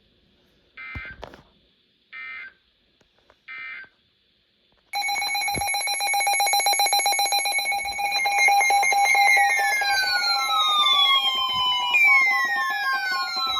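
Emergency Alert System tones: three short digital data bursts, about a second apart, closing the tornado warning. About five seconds in, a loud electronic alert tone starts, holding a steady pitch with repeated falling sweeps over it, which announces the next tornado warning.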